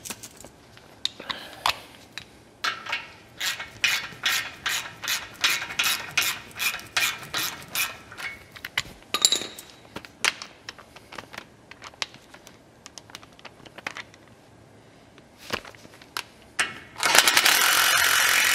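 A ratchet clicking in a steady run of about three clicks a second as the brake caliper's retaining bolt is tightened down, with a few single clicks after it. Near the end a cordless drill/driver starts up and runs steadily and loudly.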